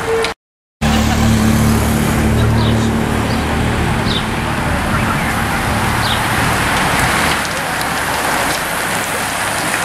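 A bunch of racing bicycles passing close by, a steady rush of tyres and air that swells about seven seconds in, with a motor vehicle's engine humming under it for the first few seconds. The sound drops out for half a second just after the start.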